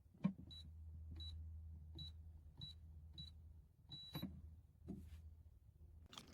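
Automatic wet-food cat feeder's control panel giving short electronic beeps, each with a click, about five in a row and then one longer beep, over a low motor hum.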